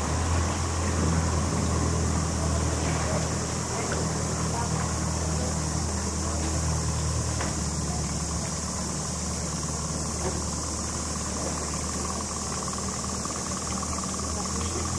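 Evinrude outboard motor idling steadily.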